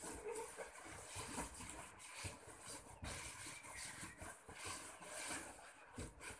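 Inflated latex balloons rubbing against each other and against hands as they are pressed and twisted into a cluster, a faint, irregular scraping.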